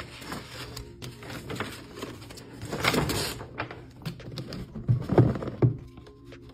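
Paper packaging rustling and crinkling as it is opened and a box is slid out by hand, loudest about three seconds in, then a few soft knocks as a cardboard box is handled around five seconds in.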